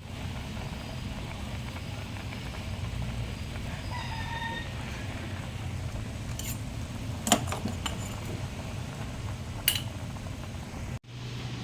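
Kitchen cooking sounds: a steady low hum with a few sharp clinks, like a utensil striking cookware, the loudest about seven seconds in. A short pitched call, like a chicken's cluck, comes about four seconds in.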